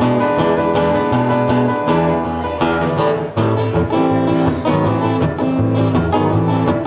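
Acoustic guitar strummed in a country-style instrumental break between verses, with a steady rhythm of chords.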